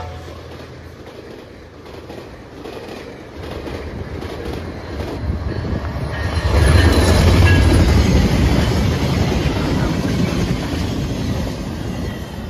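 Passenger train cars rolling past close by, steel wheels clicking over the rail joints over a steady rumble. About six seconds in the rumble grows louder as a train passes nearer.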